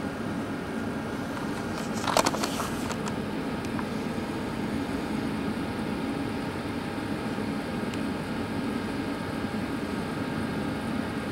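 A steady mechanical hum, with a short clatter of clicks about two seconds in.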